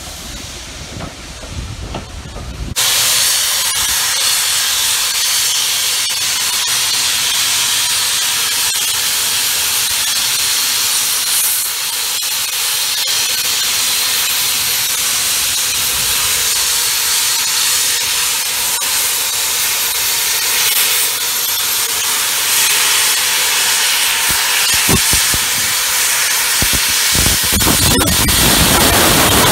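Steam locomotive 46115 'Scots Guardsman', an LMS Royal Scot class 4-6-0, blowing off steam: a loud, steady hiss that starts abruptly about three seconds in, with a few low knocks near the end.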